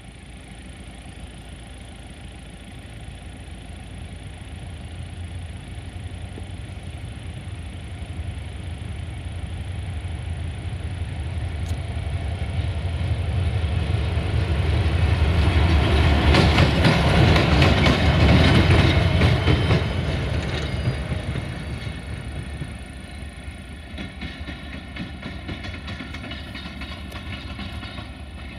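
A Romanian CFR Călători passenger locomotive, 64-1000-0, passes close by on jointed track. Its running and wheel noise grow steadily louder, peak with a quick run of wheel clicks over the rail joints as it goes by, then fade as it moves away.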